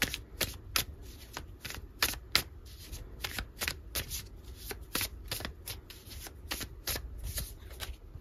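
Tarot cards being handled and turned over: a run of sharp card flicks and taps, a few a second, irregularly spaced.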